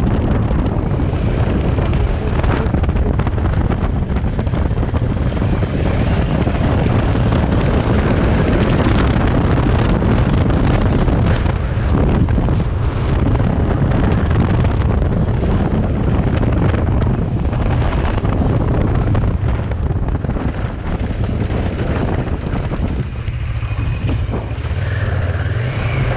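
Kawasaki Versys 650's parallel-twin engine running under way, heavily buffeted by wind on the microphone. The sound eases off briefly near the end.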